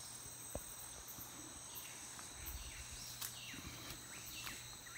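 Forest insects droning steadily at a high pitch, joined about two seconds in by a run of short high calls that each fall in pitch.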